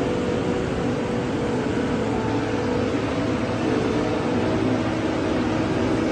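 Self-propelled feed mixer wagon running with a steady mechanical hum as it drives along and discharges feed from its side chute.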